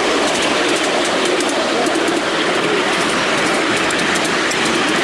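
Miniature railway train running along its track: a steady rumble of wheels on the rails with light, frequent clicks.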